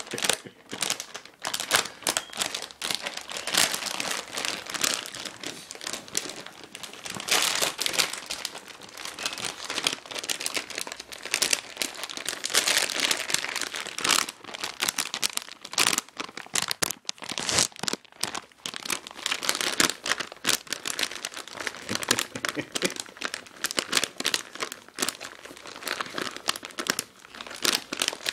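Chip bag crinkling and rustling in irregular, crackly bursts as a Giant Schnauzer works her head around inside it.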